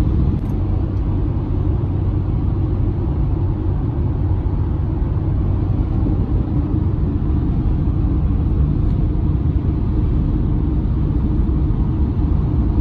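Steady low road rumble inside a car cruising at highway speed: tyre and engine noise heard from the cabin.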